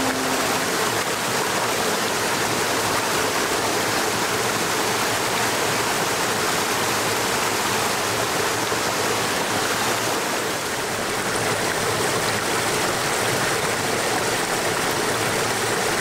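A shallow mountain stream running over rocks, a steady rush of water.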